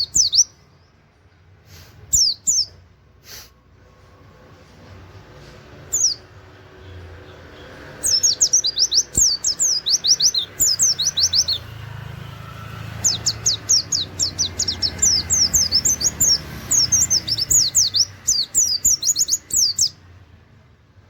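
A white-eye (pleci) singing a rapid 'nembak' song of high, sharp 'wit-wit' notes in a canary-like style. Short bursts come first, then two long fast runs of notes in the second half.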